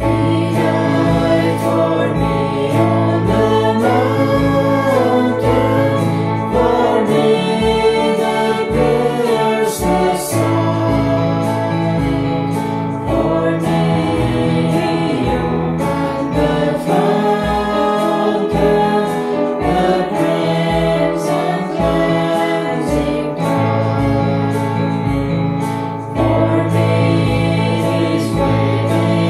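Voices singing a gospel hymn together with instrumental accompaniment over a steady beat.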